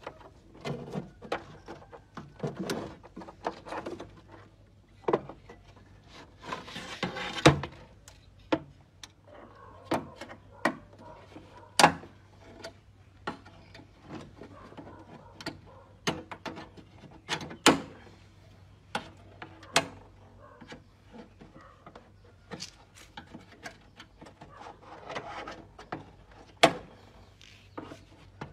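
Irregular sharp clicks, snips and taps with stretches of scraping, as scissors and hands work at a charred plastic liner on a burnt car body panel strewn with loose debris.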